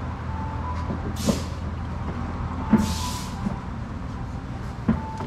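Two short hisses of air, with metal clinks and knocks from suspension parts being handled, over a steady low workshop hum.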